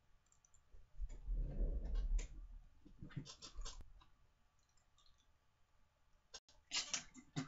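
Chewing and wet mouth clicks from eating a jelly bean, in scattered clusters, with a low rumbling handling noise about a second in.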